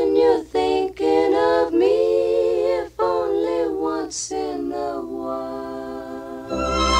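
A woman singing a slow ballad with little accompaniment, in long held notes that waver slightly in pitch. Near the end a fuller backing with a low bass comes in.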